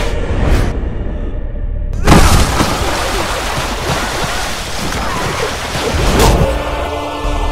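Action-film fight sound design: a muffled swell, then a sudden heavy boom-like hit about two seconds in, followed by loud splashing water noise under music, with a second hit about six seconds in.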